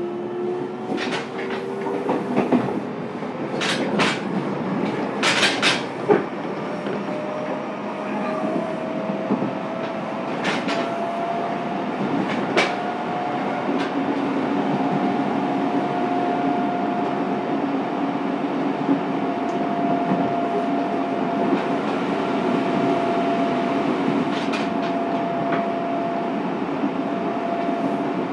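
Fukuoka City Subway 2000 series train with Hitachi GTO inverter traction, heard from inside a car while under way. The motor and inverter whine rises in pitch over the first couple of seconds as the train accelerates, then settles into a near-steady whine at running speed. Sharp clicks from the wheels on the track come now and then in the first half.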